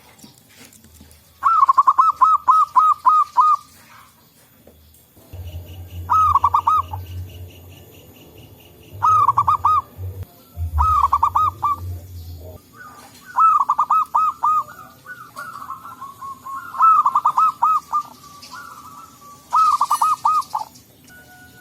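Zebra doves (perkutut) cooing: repeated phrases of quick, rolling staccato coos, one phrase every couple of seconds. A low rumble runs under the calls from about five seconds in to about twelve seconds in.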